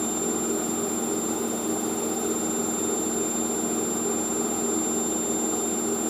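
Hoover SIX AAA160 Whisper 1600 washing machine on its final spin, its motor and drum running at a steady high speed with an even whine.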